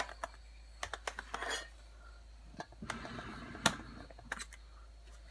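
Hands opening a toy surprise egg: a series of small sharp clicks and brief rustling as the shell and wrapping are handled and pulled apart.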